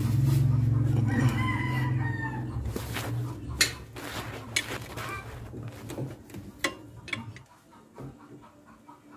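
A rooster crowing once, about a second in, over a steady low engine hum that fades out around seven seconds in. Several sharp metallic clicks and knocks of hand tools follow.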